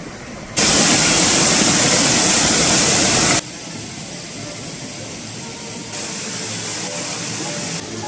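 Rushing river rapids: a loud, steady rush of white water that starts abruptly about half a second in and cuts off about three and a half seconds in, leaving a much softer steady rush.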